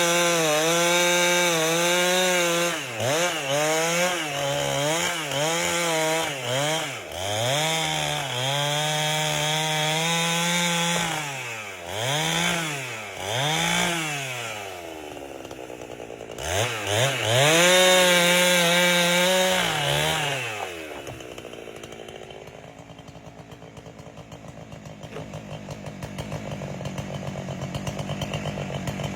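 Chainsaw with a 30-inch bar ripping an albasia log lengthwise, the engine running at high revs that dip and rise again and again as the cut loads it. About 21 seconds in it drops to a low, steady idle.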